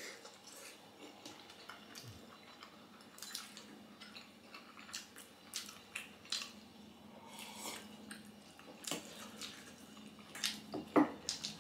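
Close-miked eating sounds of momo dumplings and soup: wet chewing, lip smacks and slurps, coming in short scattered bursts.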